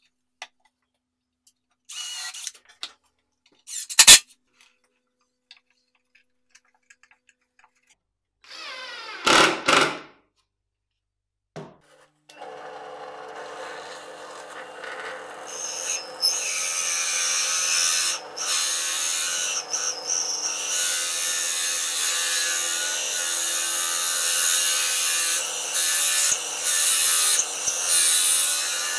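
A few knocks and a brief scrape as a plywood board is handled, then a benchtop drill press starts and runs steadily, its motor hum under the rasp of a hole saw cutting into thick plywood; the cutting grows louder a few seconds after it starts.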